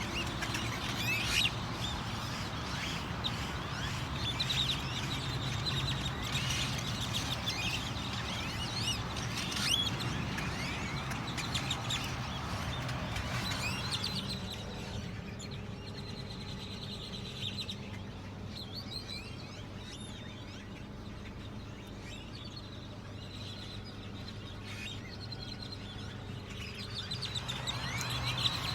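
Many small birds chirping and twittering together, the chorus thinning out about halfway through and picking up again near the end, over a steady low hum.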